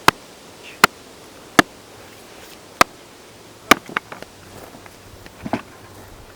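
Five loud, sharp blows at intervals of about a second, then a few lighter knocks: a tool being struck to split cedar.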